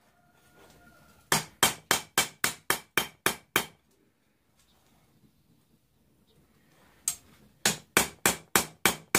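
Hand hammer striking a mild-steel bar on an anvil during forging: two runs of quick blows, about four a second, with a pause of a few seconds between them.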